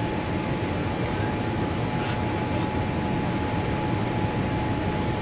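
Cabin noise inside a Boeing 787 Dreamliner on approach: a steady, even rush of engine and airflow noise, with a faint steady high tone running through it.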